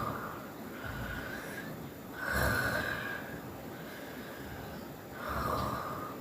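Snoring: loud snores come every two to three seconds, the loudest about two and a half seconds in, with quieter breathing between them.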